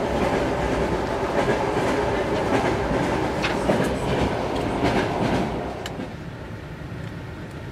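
Passenger train carriage rolling along the track: a steady rumble with the wheels clicking over rail joints, falling to a quieter rumble about six seconds in.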